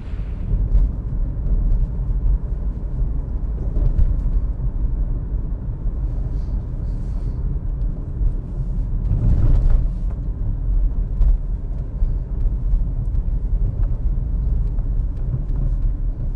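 Steady low rumble of a vehicle in motion, swelling briefly about nine seconds in.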